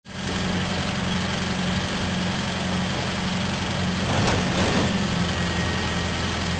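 Heavy diesel engine of a mobile crane running steadily at idle, a constant low drone, swelling briefly about four seconds in.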